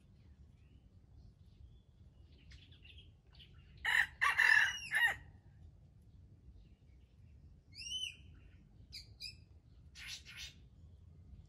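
Red junglefowl (wild chicken) rooster giving one short crow about four seconds in. A few brief high chirping calls follow later.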